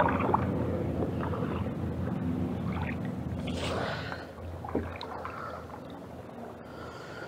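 A canoe drifting on a creek current with a low, fading rumble of water and wind on the microphone. The handheld camera brushes against a hand about three and a half seconds in.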